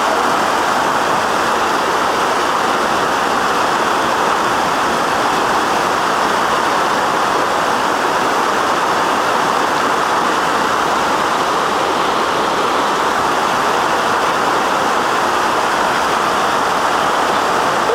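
Fast-flowing river water rushing in a steady, unbroken roar.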